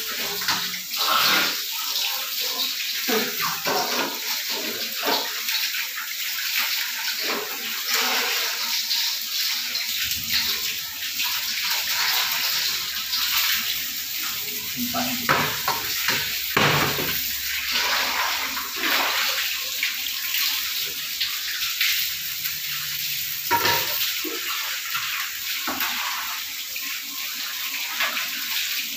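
Tap water running and splashing into basins on a tiled floor, with occasional knocks of metal bowls being handled.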